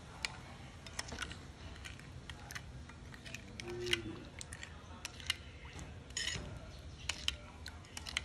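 Metal spoon clinking against a ceramic bowl in scattered sharp taps while stirring a liquid chili dressing.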